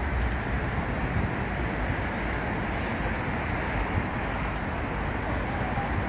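Steady rush of wind over the microphone and low rumble of riding a bicycle along a paved path.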